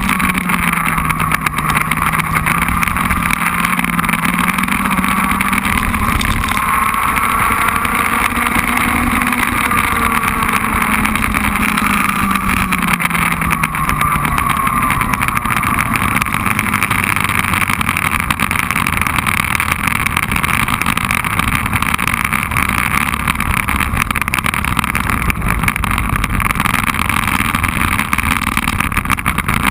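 Racing kart engine heard onboard under heavy wind noise on the microphone. Its pitch rises, then falls away about halfway through as the kart slows, and it runs low and steady after that.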